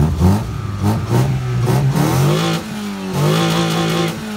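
Drag-tuned Opel Tigra's engine being revved. The revs climb and drop several times, are held high twice, and fall away near the end.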